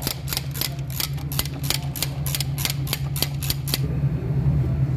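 Ratchet wrench clicking, about four to five clicks a second, as a bolt is tightened; the clicking stops a little before four seconds in. A steady low hum runs underneath.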